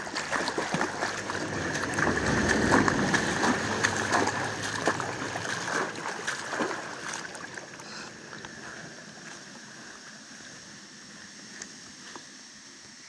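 Feet in sandals wading and splashing through shallow water, a busy run of splashes loudest in the first half that dies down after about eight seconds to a fainter steady watery hiss.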